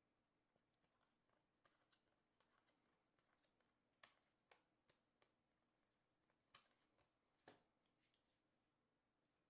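Near silence, with faint soft clicks of trading cards being flicked and slid from one hand to the other through a stack; the clearest few come between about four and eight seconds in.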